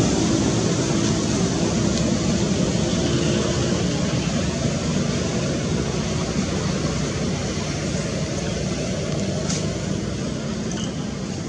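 A motor vehicle's engine running, its steady noise slowly fading away.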